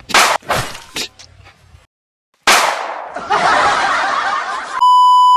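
Edited-in comic sound effects: a quick string of sharp whooshes and hits, a short gap, a rushing noisy stretch, then a loud steady beep about a second from the end.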